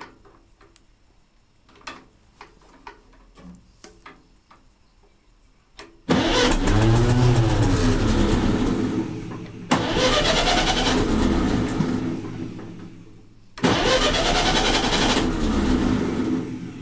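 Ferguson TEA20 petrol tractor's gear lever clicking through the gate, then the starter motor cranking the engine in three separate bursts of about three to four seconds each, the first about six seconds in. On this tractor the starter is worked by pushing the gear lever past reverse into the start position.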